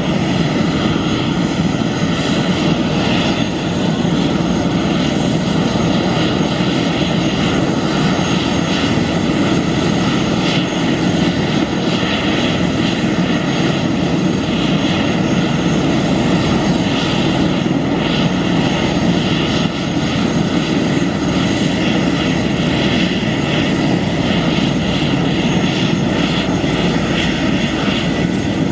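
Airbus H145M helicopter running on the ground: the twin turbine engines whine and the main rotor and enclosed fenestron tail rotor turn, all at a steady pitch and level.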